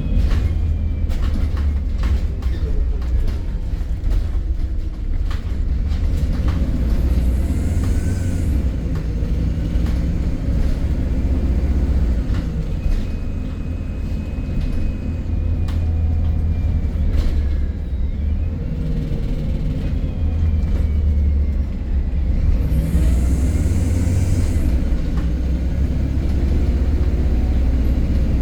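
MAN E300 single-decker bus running, with a heavy low rumble, many rattles and clicks, and faint whines that rise and fall. A short hiss sounds about eight seconds in and again around 23 seconds.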